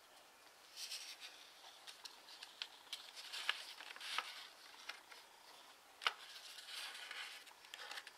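A sheet of TANT origami paper rustling and crinkling as it is unfolded, smoothed flat and folded along its creases by hand, with a scatter of short sharp clicks, the loudest about three and a half and six seconds in.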